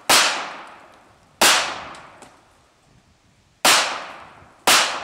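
Four pistol shots from a small two-tone (silver and black) handgun, fired one-handed at uneven intervals, each followed by an echo that dies away over about a second.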